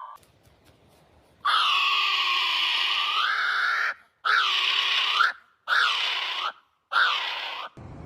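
A bird giving harsh, screechy calls: one long call, then three shorter ones, each dipping and rising in pitch.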